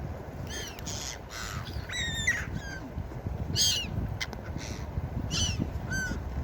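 Gulls calling: about ten short, harsh cries in quick succession, some overlapping, over a steady low rumble.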